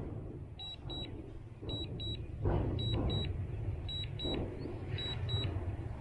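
A drone remote controller beeping in short high pairs, about one double beep a second, the alert it gives while the drone is returning home. Underneath runs a steady low rumble.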